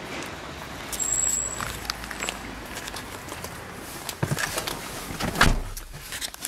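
Steady background noise with a few knocks and clicks from a handheld camera being moved and handled, the loudest about five and a half seconds in. A short high-pitched tone sounds about a second in.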